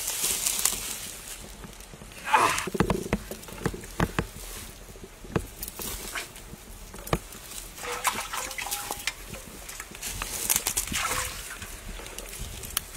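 Dry straw and litter rustling and crunching under bare feet and hands, with scattered sharp clicks and taps, some of them from the wood fire crackling.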